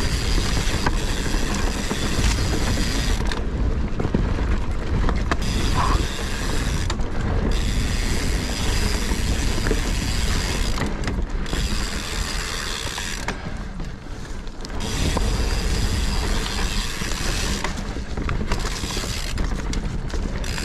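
Mountain bike rolling fast over a dirt forest trail: the rear freehub's pawls buzz in a rapid ratcheting while the rider coasts, dropping out for moments several times as the rider pedals, over a steady rumble and rattle of tyres and bike on the ground.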